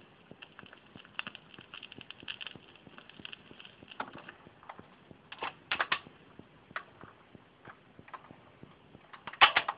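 Record surface noise through the Kolster Brandes Tunetime record player: steady crackle and scattered clicks from the stylus after the song has ended. Louder clusters of clicks come about four seconds in, around six seconds in and near the end.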